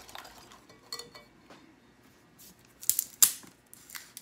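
A metal wire whisk beating an egg mixture in a ceramic mixing bowl stops just after the start. A few sharp clinks of the whisk against the bowl follow, the loudest a quick cluster about three seconds in.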